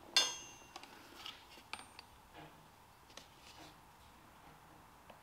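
A sharp metallic clink with a brief ring just after the start, then a scatter of faint clicks and taps as a steel axle pin and a pump oil can are handled while the pin is being oiled.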